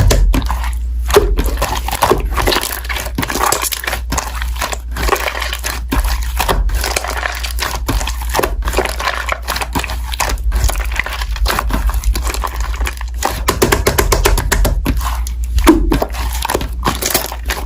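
Slime being squeezed and poked by hand, giving a dense run of crackling pops and clicks, with a steady low hum underneath.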